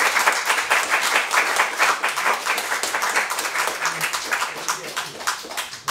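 An audience applauding with steady, dense clapping that thins out a little near the end.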